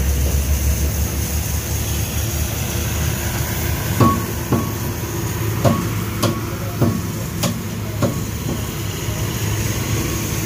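A butcher's cleaver chopping lamb on a wooden tree-stump block: about eight sharp chops roughly half a second apart, starting about four seconds in, some with a brief metallic ring. A steady low rumble runs underneath.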